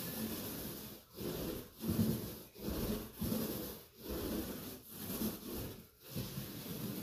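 Paint roller rolling paint onto a drywall wall in repeated back-and-forth strokes, a rasping sound that breaks off briefly between strokes roughly once a second, while a first coat goes on.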